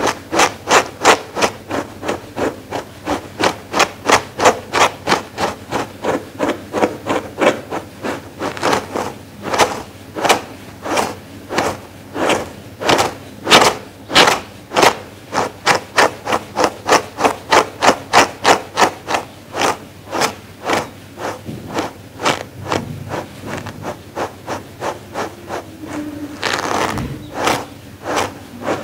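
Dog grooming brush stroked briskly through a faux fur pad: a steady run of short scratchy brushing strokes, about two or three a second, with one longer stroke near the end.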